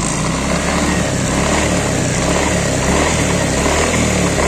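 Yamaha NMAX 155 scooter running with a 'klotok-klotok' clunking knock from the rear of the CVT. The owner suspects a worn rear pulley bearing or gearbox bearing, since greasing it did not cure it.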